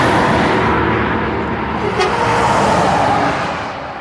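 Semi truck passing close by: loud, steady road and engine noise that fades away near the end, with a single sharp click about halfway through.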